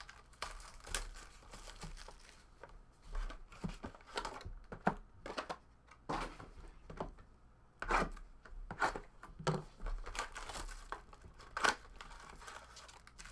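Plastic wrapping being torn and crinkled off sealed trading-card boxes, with cardboard boxes being handled: irregular sharp crackles and rustles.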